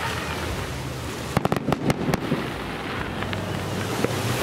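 Aerial fireworks bursting: a rapid cluster of sharp bangs and crackles about a second and a half in, followed by a few fainter pops, over steady background noise.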